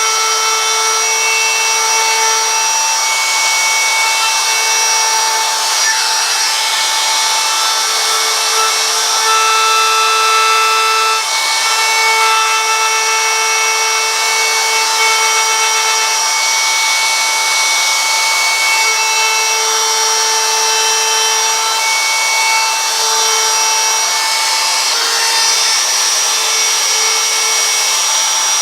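Handheld electric carving tool running at high speed with a steady whine, cutting lines into a wooden sign through a vinyl mask; the pitch holds while the tone briefly drops and returns as the bit works along the cut.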